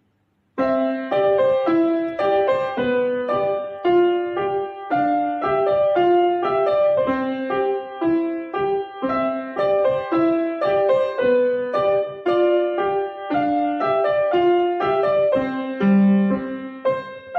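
Upright piano played by a child: a steady flow of notes, with melody and accompaniment together, starting about half a second in.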